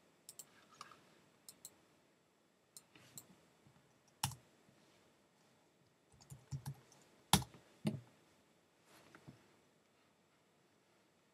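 Faint mouse clicks and keystrokes on a computer keyboard: scattered single clicks, then a quick run of keys about six seconds in as a word is typed, followed by two firmer presses as the return key is hit.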